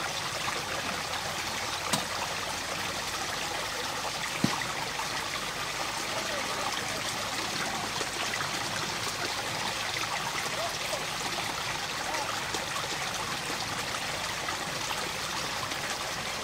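Small, shallow stream trickling steadily over rocks. Two brief sharp clicks break through, about two seconds in and again about four and a half seconds in.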